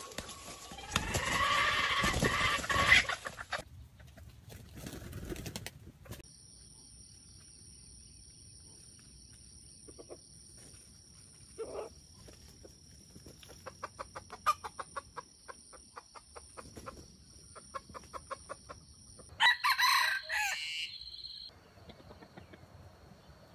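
Wild junglefowl roosters crowing, once loudly about a second in and again near the end, with soft quick runs of clucking in between.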